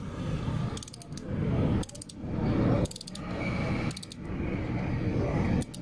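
Ratcheting torque wrench clicking in short runs on each back-stroke, about once a second, as it runs down a motorcycle's oil drain bolt toward its 11 N·m setting.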